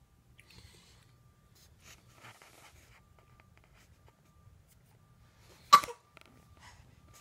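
A white long-haired cat sneezing once, a single short, sharp sneeze near the end, amid faint soft rustling.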